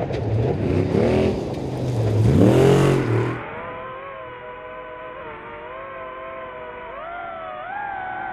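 Off-road race truck engine revving up and backing off several times, loudest about two and a half seconds in. It cuts off suddenly just over three seconds in, giving way to music of sustained electronic tones that drift slowly in pitch.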